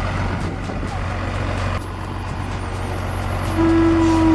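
Heavy log truck's diesel engine running steadily with a low hum. About three and a half seconds in, a steady higher tone joins and the sound grows louder.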